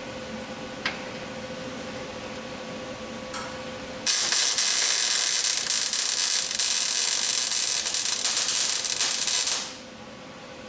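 Welding on a truck cab's sheet metal: a loud, even crackling hiss that starts abruptly about four seconds in and stops after about five and a half seconds, over a low steady shop hum.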